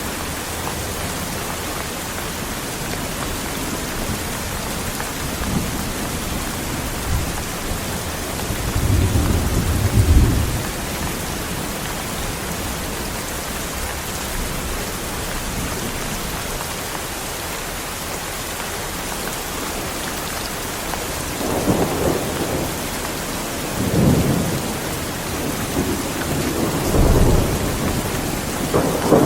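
Heavy rain falling steadily with rumbles of thunder: one rolling peal swells about a third of the way in, and several more come in close succession near the end.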